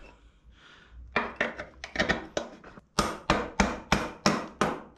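A mallet knocking a motorcycle's rear axle through the swingarm and wheel hub. First a few lighter taps, then from about three seconds in a steady run of firmer blows, about three a second.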